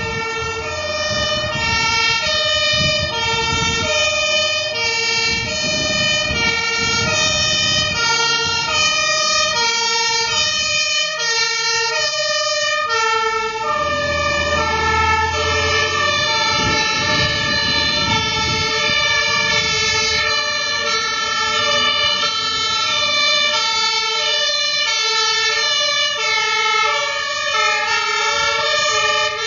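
German two-tone fire engine sirens (Martinshorn) sounding as several fire trucks pass, their alternating high and low notes overlapping out of step. A truck engine rumbles loudest as one truck passes close about halfway through.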